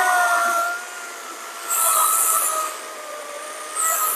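SKIL 40V brushless cordless chainsaw cutting through a mesquite log, its motor whine sagging slowly in pitch under load. Louder bursts of cutting noise come twice, about two seconds in and near the end.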